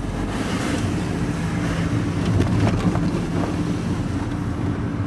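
Steady engine drone and road noise heard from inside a moving vehicle's cab, with an oncoming car passing close by near the start.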